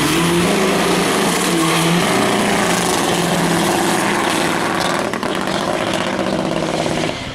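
A car engine held at high, nearly steady revs, a loud drone over a wide rushing noise, which drops away at the very end.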